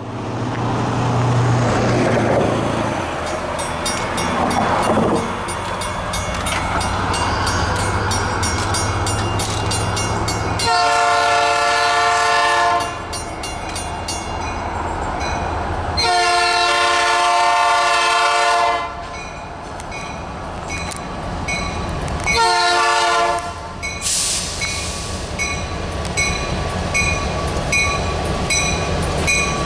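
GMTX EMD GP38-2 diesel locomotives approaching with a hopper train, engines rumbling steadily. The lead unit sounds its air horn for a grade crossing: two long blasts and a short one, with another long blast starting at the very end.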